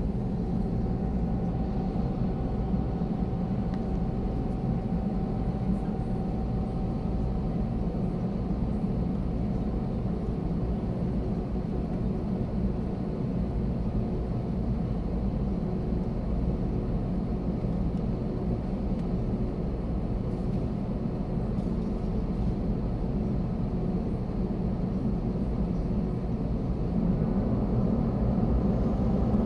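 Cabin noise of an Airbus A320-family jet taxiing: a steady low rumble from the idling engines and the rolling airframe, with a faint steady whine, growing a little louder near the end.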